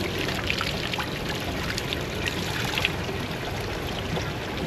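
Spring water running and trickling steadily, with many small splashes.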